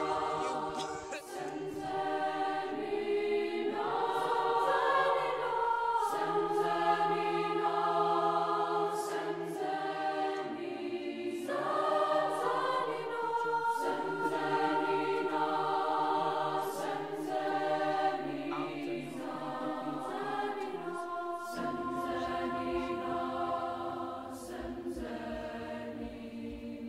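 Choir singing as background music: several voices holding sustained chords that change every few seconds.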